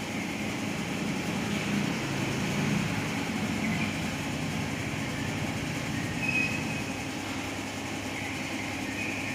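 Steady low rumbling background noise, with a few faint, short high chirps from a cucak wilis (trengganis) songbird breaking through a few times.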